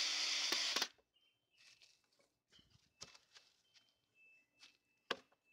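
A steady hiss that cuts off abruptly just under a second in. Then near silence, with a few faint clicks and faint thin high tones.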